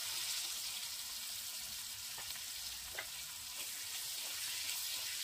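Potato wedges frying in hot oil in a kadai: a steady sizzle, with a few faint clicks and a spatula stirring them near the end.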